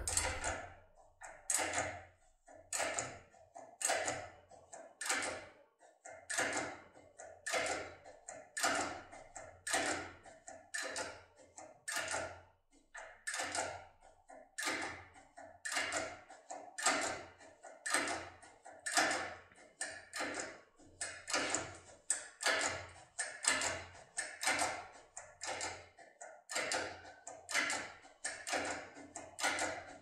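Topolino impression decoder working the pins of an ABUS D6 lock cylinder: steady small metallic clicks, about two a second, as the impression part is pressed onto the pins and released under tension.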